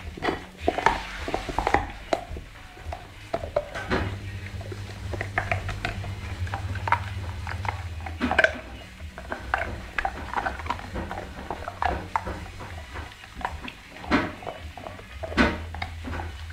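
A pit bull terrier gnawing and crunching a bone: irregular cracks and clicks of teeth on bone, sharpest a second in, about eight seconds in and twice near the end, over a steady low hum.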